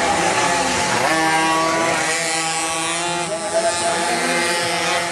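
Several minimoto pocket-bike racing engines, small two-stroke singles, buzzing at high revs. Their pitches rise and fall and overlap as the bikes accelerate and brake through the corners.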